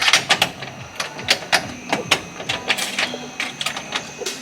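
Belongings being handled and set down: a quick, irregular run of clicks and knocks, several a second.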